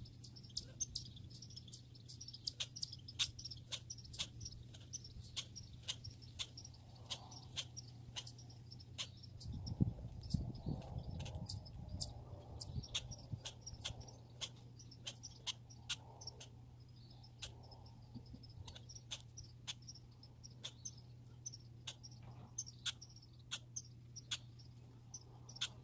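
Squirrel sounds: sharp, irregular clicks and ticks, two or three a second, over a faint hiss and a low steady hum. About ten seconds in, a few seconds of low rustling.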